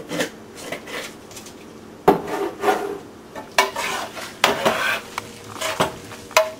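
A cooking spoon scraping and clacking against a square skillet in irregular strokes as ground chicken is stirred and spread out with a fresh tomato and onion blend.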